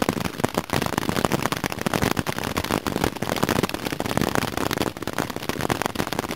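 Marble-sized hailstones pelting a tent, heard from inside: a dense, unbroken clatter of hits on the tent fabric.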